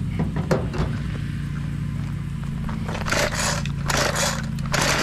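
Recoil starter of a Ryobi RY253SS two-stroke string trimmer pulled three times on full choke, each pull a short rasping whir under a second apart, starting about three seconds in. A steady low hum runs underneath.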